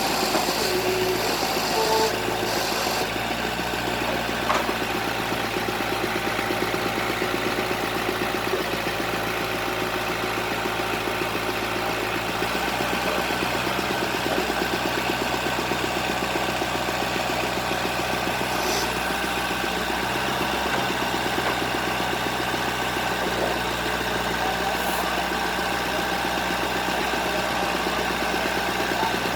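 Engine of a bored-pile drilling rig running steadily at idle, a continuous even drone.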